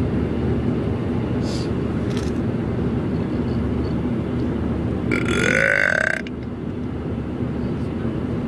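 A loud belch about five seconds in, lasting about a second, over the steady rumble of road noise inside a moving car.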